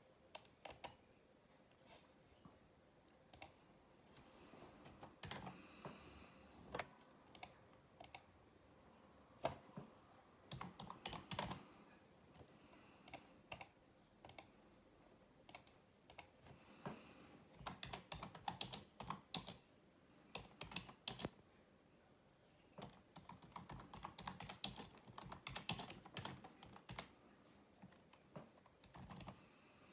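Typing on a computer keyboard: quick irregular runs of key clicks, with short pauses between the runs.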